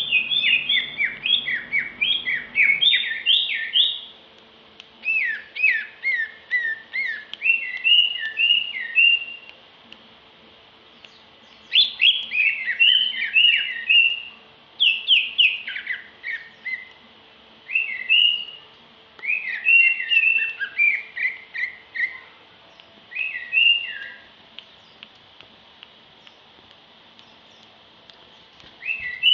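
Female green leafbird (cucak ijo) singing: bursts of rapid, clear, down-sliding whistled notes in phrases of a few seconds, separated by short pauses.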